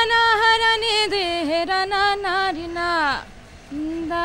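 A single high voice singing a melodic, ornamented line without accompaniment; the phrase breaks off about three seconds in and a new one starts half a second later.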